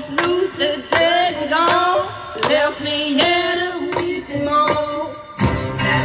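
Background music: a song with a singing voice over instrumental backing, with a deeper bass part coming in near the end.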